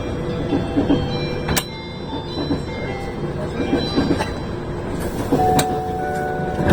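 The onboard announcement chime of a JR 185 series electric train, a run of bell-like notes, heard over the train's running rumble and the rhythmic clatter of its wheels. Two sharp clicks cut in, one about a second and a half in and one about five and a half seconds in.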